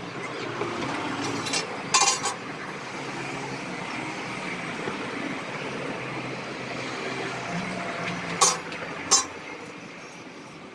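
Sharp metallic clinks ringing out over a steady background noise, a pair about two seconds in and another pair near the end.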